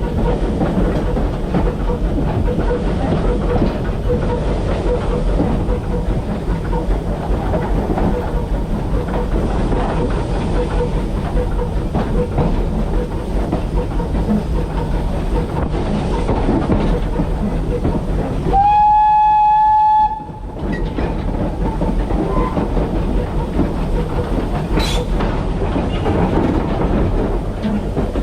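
Steam locomotive running along the line with a steady rumble of wheels and motion. About two-thirds through, one steady whistle blast lasts about a second and a half.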